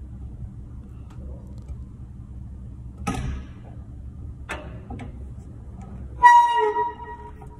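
Metal knocks and a click as a drill press's belt-tension lever is worked to retighten the belt. Near the end comes a loud metallic clank that rings on with a clear tone for about a second.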